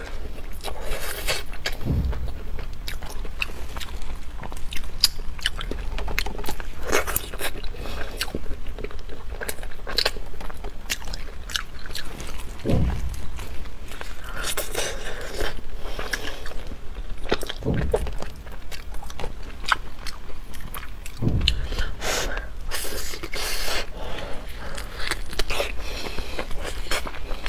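Close-miked eating through a clip-on lapel mic: biting and chewing glazed meat off the bone, with many short sharp clicks and a few dull low thumps.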